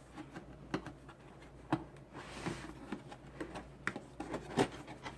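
Cardboard retail box of a CPU cooler being opened by hand: scattered taps and knocks of cardboard and packaging, with a soft sliding rustle about halfway through.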